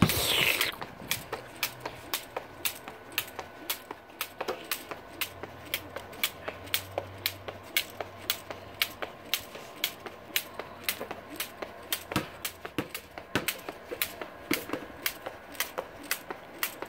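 A jump rope slapping the concrete patio on each turn, along with sneakers landing, in a quick, even rhythm of sharp clicks.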